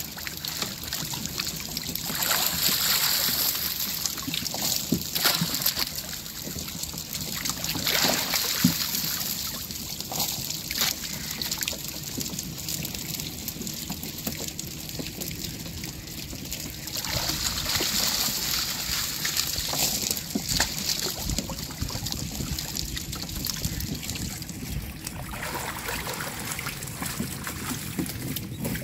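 Water sloshing and splashing as a person wades chest-deep inside a bamboo-screen fish trap, working a hand net through the water, with short sharp splashes scattered through. Louder stretches of splashing and running water come a couple of seconds in and again about two-thirds of the way through.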